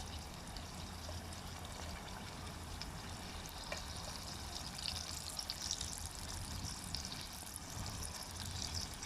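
Battered onion rings deep-frying in hot oil: a steady sizzle with many small crackles, busier in the second half.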